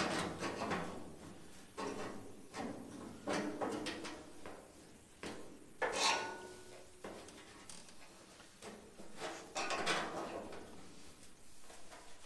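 Locking pliers gripping and bending the sheet-steel edge of a Model A rear body panel to straighten it: a series of short metallic clanks and scrapes, the loudest about six seconds in with a brief ring after it.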